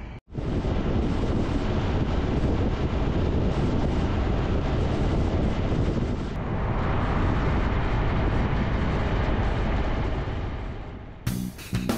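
Steady wind rush and road noise of a motorcycle riding along a highway at speed, with the engine's drone underneath; it cuts out briefly just after the start. Strummed guitar music comes in near the end.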